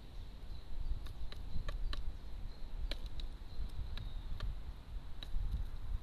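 Carrion crow pecking seed from a plastic feeder tray: about a dozen sharp, irregular clicks of the bill striking the tray, over a low rumble and a faint, steady high tone.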